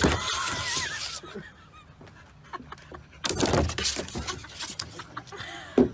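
Bulldog sliding down a plastic playground slide: two rushes of its body rubbing over the plastic with short squeaks, and a sharp knock near the end.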